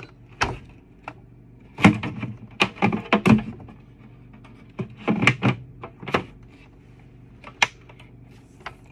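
Hard plastic knocks and clicks from an upright vacuum cleaner being handled, its clear dust canister and body shifted and tapped: a string of separate sharp knocks, several in quick clusters, with the motor not running.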